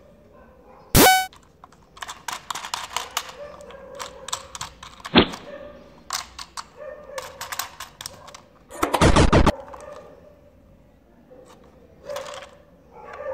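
Plastic battery-operated toy train being handled, giving a string of plastic clicks and rattles with a sharp single click near the middle. Two short, loud electronic sound bursts come from it, one about a second in and one near the ninth second.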